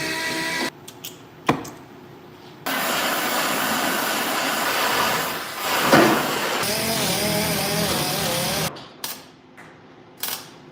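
Power tools running in short bursts during auto body repair. A steady whine gives way to a few sharp clicks and knocks, then a long loud run of rushing noise from about 3 s to 9 s with a wavering tone late in it. More clicks follow near the end.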